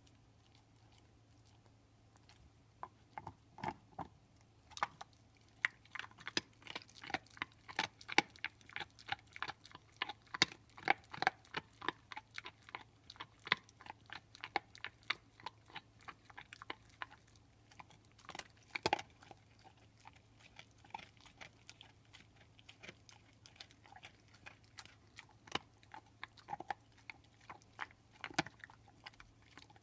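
Pitbull crunching and gnawing on a beef bone: rapid sharp crunches start about three seconds in and come thickest through the first half. One loud crack falls a little before two-thirds of the way through, and the crunching grows sparser after it.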